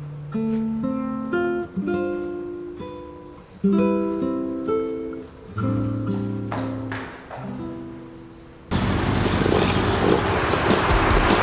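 Gentle acoustic guitar music, single plucked notes forming a slow melody. About two-thirds of the way in, a loud, dense rushing noise cuts in suddenly and holds.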